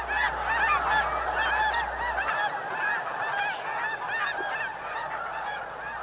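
A large flock of snow geese calling in flight: a dense chorus of many overlapping short, high honks.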